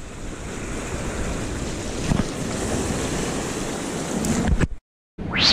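Sea swell washing against coastal rocks, a steady surf rush with wind on the microphone. Near the end the sound cuts out for a moment, then a short sharp swish.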